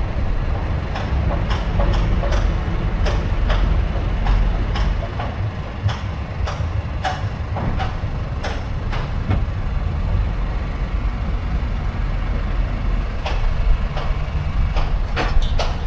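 An engine running low and steady, with scattered short knocks and clicks over the rumble.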